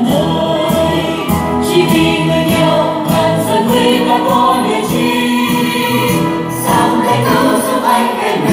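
Choir singing a Christian hymn with instrumental accompaniment.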